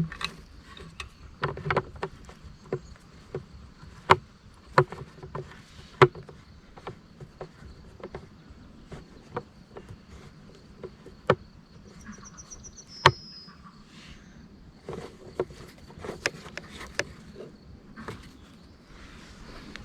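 Irregular sharp clicks and knocks, several a few seconds apart, over a faint steady high insect trill; a short bird-like chirp comes about two-thirds of the way through.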